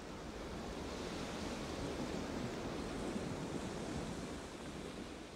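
Sea surf washing over a rocky shore: a steady rushing noise that swells through the middle and eases off near the end.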